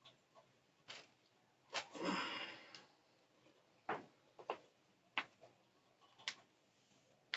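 A series of faint, sharp joint pops and cracks, about seven at uneven intervals, from a body being manipulated in a chiropractic-style massage, with a short rustle of movement about two seconds in.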